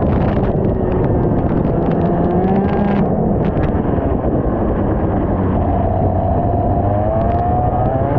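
IAME X30 125cc two-stroke kart engine running at racing speed. Its pitch dips and climbs as the kart slows for corners and accelerates out, with a long climb in the second half. It sits under a dense rushing noise on the onboard microphone.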